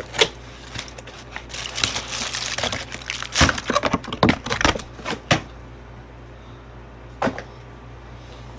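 Takeout packaging being handled: a cardboard box opened and an aluminium foil wrapper crinkling open, with a run of sharp clicks and crackles, then one last click near the end.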